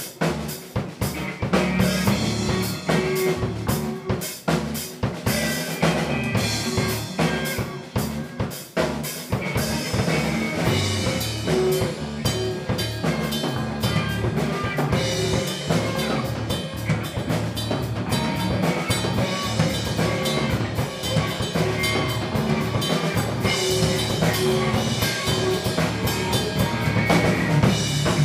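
Band rehearsal recording: a drum kit playing a busy beat with snare and bass drum hits, over other instruments.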